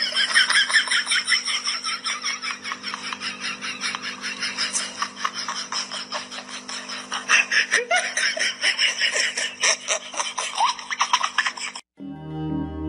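A person laughing in rapid, high-pitched giggles over a steady low hum, cutting off near the end.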